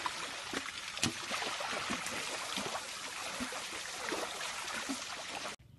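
Wet mud and water sloshing and squelching as a baby elephant rolls in a mud wallow, with many small wet clicks and slaps over a steady splashy hiss. It stops abruptly near the end.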